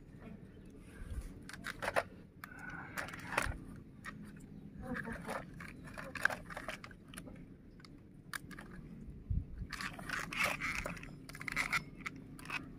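Irregular scrapes and clicks of a plastic RC rock crawler and its transmitter being handled and shifted on rough stony ground.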